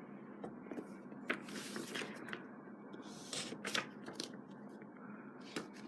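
Paper inserts and packaging being handled: light rustling with scattered small taps and clicks.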